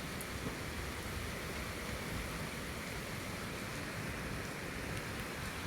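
Steady rushing of a night breeze through the leaves of trees, with an uneven low rumble of wind on the microphone.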